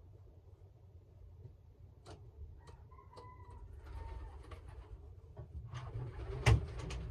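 Hands working in a pigeon nest box: rustling and scattered clicks, with a brief high peep about three seconds in and one loud sharp knock near the end.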